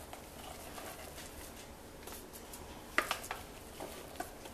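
Spatula scraping thick ground chana dal paste out of a plastic food processor bowl into a steel mixing bowl: soft scraping with a few sharp knocks, the loudest about three seconds in.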